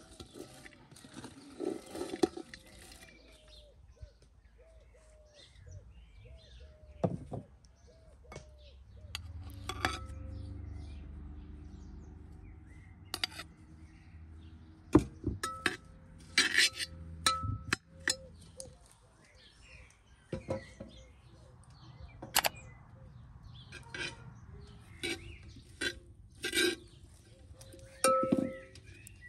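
A metal slotted skimmer clinking and knocking against a metal cooking pot as chopped onions and butter are stirred, a series of scattered clinks.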